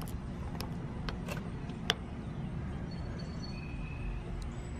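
Scattered sharp clicks and taps as meter test leads are put onto the terminals of a new 45/5 dual run capacitor to check its capacitance, over a steady low rumble.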